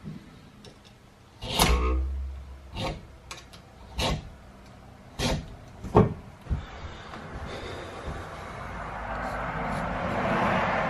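About five sharp knocks, roughly a second apart, the first with a heavy thud; then a scraping or rasping noise that swells and grows louder toward the end.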